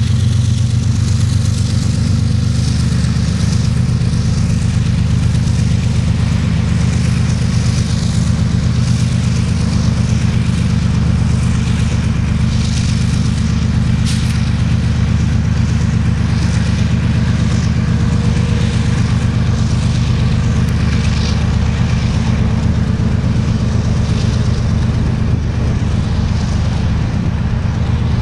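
Union Pacific gravel train rolling past: a steady low diesel engine drone under repeated rattling rail and wheel noise.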